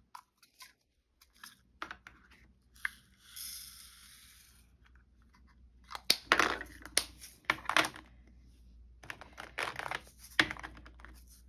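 Resin diamond-painting drills shaken and poured between small plastic storage containers, a hissing rattle of about a second and a half. Then clusters of sharp clicks and rattles as the plastic containers and their snap lids are handled.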